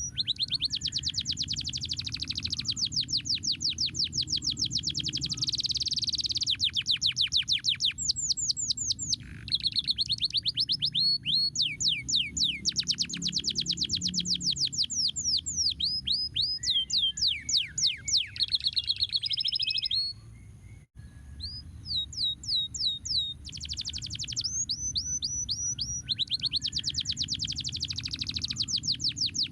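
Domestic canary singing in rapid trills of repeated down-sweeping notes, with a short break about twenty seconds in, over a low steady hum.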